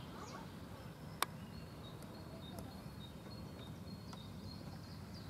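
Birds chirping, a run of short high notes through the middle, over a low steady rumble, with one sharp click a little over a second in.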